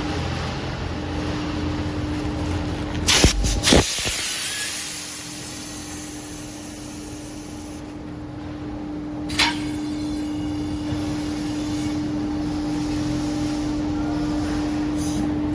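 Compressed air line being connected, with a steady machine hum throughout. A few sharp clicks about three seconds in are followed by a hiss of escaping air that fades over about four seconds. A single click comes near the ten-second mark.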